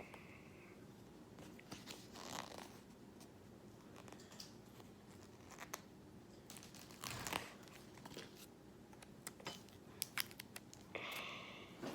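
Faint, scattered rustles, crinkles and small clicks of objects and packaging being handled, with short bursts about two, seven and eleven seconds in.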